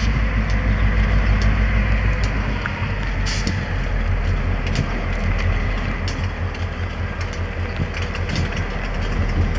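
Canadian Pacific diesel-electric locomotives running as they move slowly past with a train of hopper cars, a steady low engine rumble and throb. A brief hiss about three seconds in.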